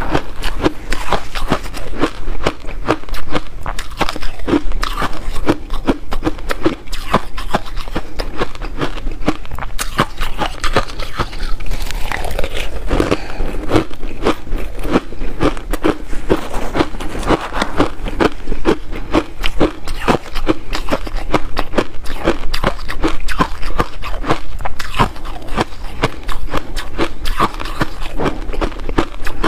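Frozen matcha-powdered ice being bitten and chewed close to the microphone: a continuous run of rapid, crisp crunches.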